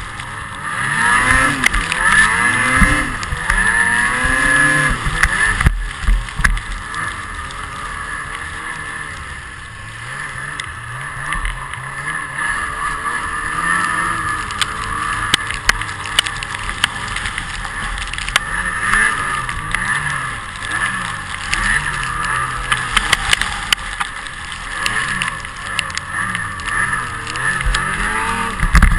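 Snowmobile engine running and revving up and down as the machine is ridden.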